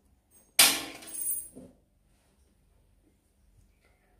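A small steel sewing-machine part, the just-removed feed dog, dropped onto a hard surface: a sharp metallic clink about half a second in that rings briefly, then a second, softer clink as it settles.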